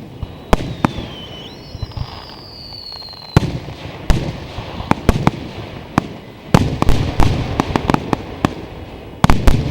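Aerial fireworks bursting in a display, with many sharp bangs. A high whistle falls slightly in pitch from about one second in and cuts off at a loud bang. The bangs come faster in the second half, with a quick burst of them near the end.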